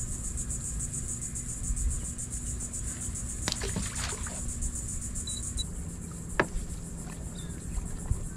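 Steady high-pitched insect buzzing with a fast pulse, over a low rumble of water and wind around the boat; a few sharp clicks and a small splash come about halfway through.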